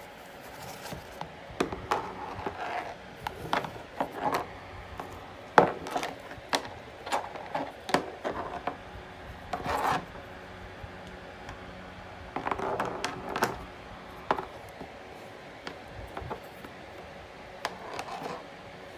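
Irregular handling sounds: sharp clicks and knocks mixed with short rubbing and scraping, as items and packaging are picked up and moved about.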